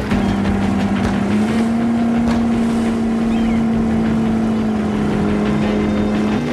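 Speedboat engine running at high speed, a steady drone whose pitch steps up slightly about a second and a half in.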